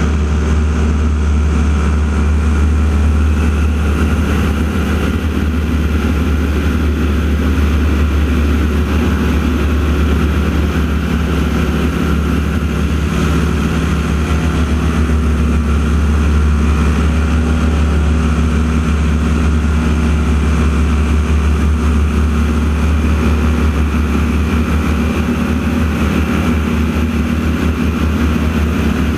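Radial-engine propeller aircraft, the North American T-6 Texans, running in a steady, deep engine drone that holds even throughout.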